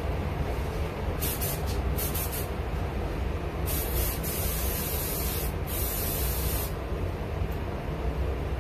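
Spray gun hissing as Cerakote ceramic coating is sprayed onto a pistol slide: a few quick short blasts about a second in, then a longer pass of about three seconds with a brief break. A steady low hum runs underneath.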